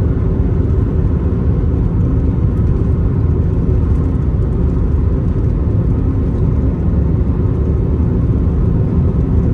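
Car driving at road speed: steady low rumble of road and engine noise heard from inside the car.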